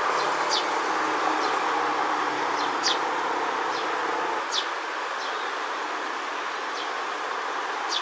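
Eurasian tree sparrows giving short, high, falling chirps, about ten scattered through, the loudest about three seconds in, over a steady background drone.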